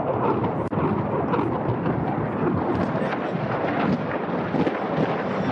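Continuous rumble of artillery shelling, dense with many small crackling reports and no let-up.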